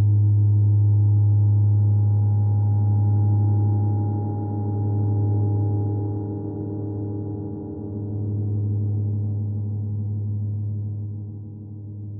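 Background music: one deep held tone with fainter tones above it, wavering in loudness and slowly fading toward the end.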